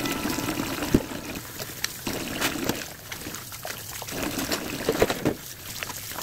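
Tap water running and splashing into a stainless steel sink as dishes are rinsed under it, with a few sharp knocks of dishes being handled, the loudest about a second in.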